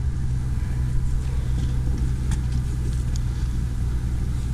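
An engine idling with a steady low hum, with a few faint clicks over it.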